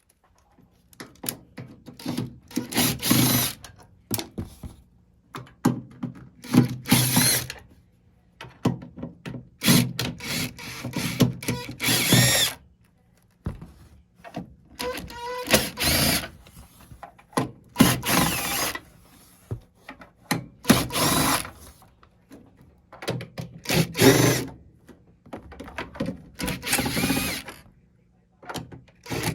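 Cordless drill/driver spinning out screws in short bursts of a second or two, about eight times, with pauses between them.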